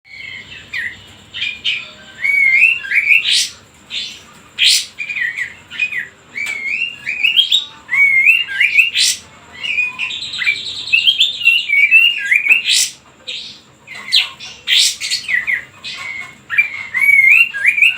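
Kapas tembak, a bulbul, singing in an agitated, 'high-blood' style: quick repeated warbled phrases broken by sharp, loud call notes, with a short buzzy note about ten seconds in. The song is used as a lure to provoke rival birds into singing.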